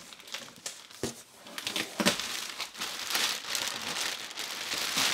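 Thin clear plastic packing bag crinkling and rustling as a hand grabs and pulls at it, in irregular crackles that get busier after a couple of seconds.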